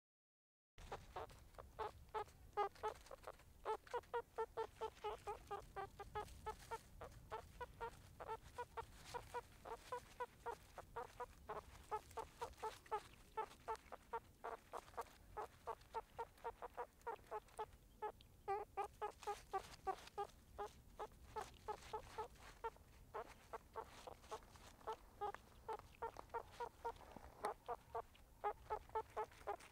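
Meerkats giving a steady stream of short, repeated calls, about three a second, starting just under a second in.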